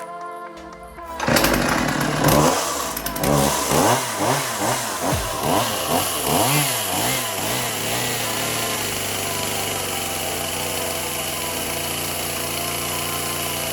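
Husqvarna 142 two-stroke chainsaw cutting in abruptly about a second in, revved up and down in a run of quick blips about two a second, then held at a steady speed. Music plays before the saw comes in.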